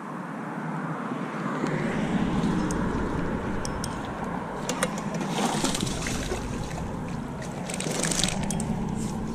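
A hooked fish splashing at the surface while being reeled in, in two spells, the second and strongest near the end, over a steady rumble of road traffic.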